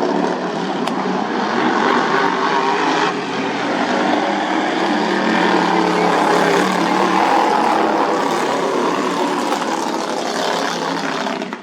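Racing lawnmower engines running hard, loudest through the middle.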